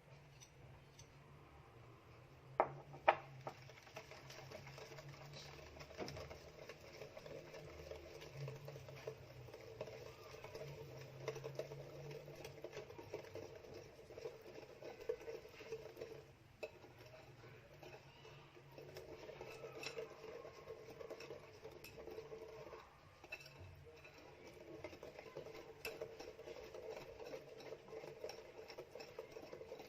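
Cake batter being stirred by hand in a mixing bowl as flour is added bit by bit, the utensil scraping around the bowl. There are two sharp taps against the bowl about three seconds in.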